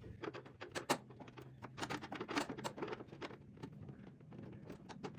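Irregular light clicks and taps, several a second, a few louder than the rest, as a paintless dent repair rod tool works against the inside of a car's fender panel.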